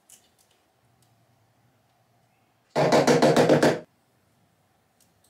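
Masking tape being peeled off a freshly spray-painted 3D-printed part: one loud crackling rip of rapid ticks, about eight to ten a second, lasting about a second near the middle, with a few faint clicks before it.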